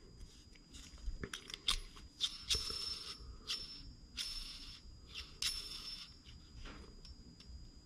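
Faint light metallic clicks and short scrapes of small parts being handled, as thin shims are slipped onto a nitro engine's crankshaft ahead of the clutch bell.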